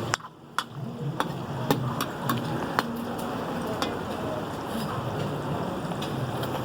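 Steady cooking hiss with sharp metal clinks at irregular intervals, a metal ladle striking a karahi, mostly in the first few seconds.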